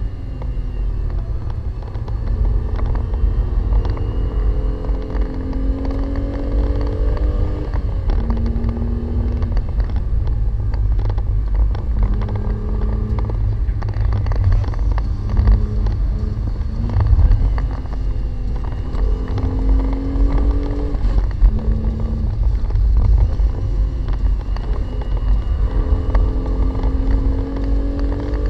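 Renault Clio V6's mid-mounted 3.0-litre V6 heard from inside the cabin under way at speed. The engine note climbs with the revs and drops back several times, over a heavy low rumble of road and tyre noise.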